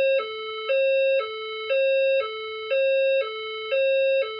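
System Sensor SPSR speaker strobe sounding an alert signal tone: two close notes alternating low and high, each about half a second, the higher one louder. This is the alert tone that signals an unverified report of an event in the building.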